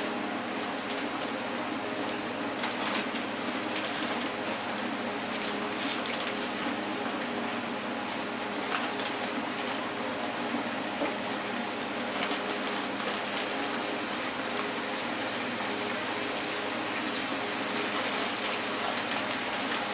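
Hot oil sizzling steadily in a Farberware electric deep fryer as cornmeal-coated fish, scallops and shrimp fry, with scattered crackles.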